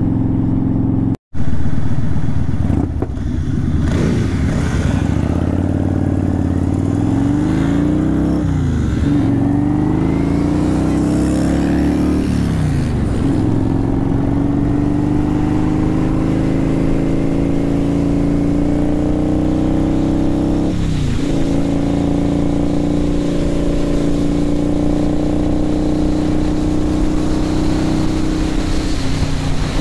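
Motorcycle engine pulling away and shifting up through the gears: the pitch climbs, then drops at each shift, three times in the first dozen seconds and once more later, before settling into a steady cruise. The sound cuts out for a moment about a second in.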